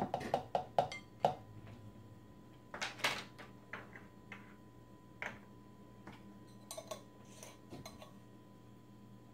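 A measuring spoon tapped quickly about half a dozen times against a plastic dressing cup to knock the salt out, then scattered clicks and clinks of measuring spoons and small jars being handled and set down on a wooden table.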